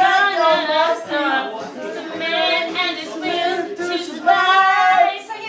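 A drunk man singing loudly into a handheld microphone, phrase after phrase with a brief break a little past the middle, little or no backing music heard.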